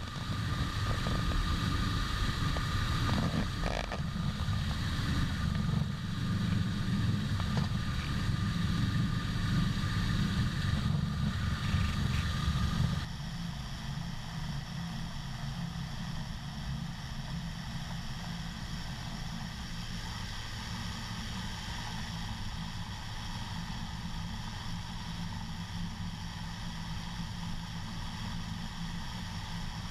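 Heavy farm harvesting machinery running steadily: dense low engine noise with a steady whine over it. About thirteen seconds in it cuts abruptly to a quieter, even machine hum.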